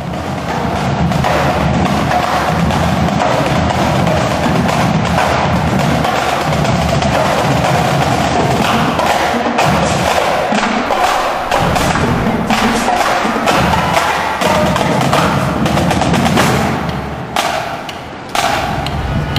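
Drum-led percussion music, a steady run of many sharp strikes, dropping in level and changing about two seconds before the end.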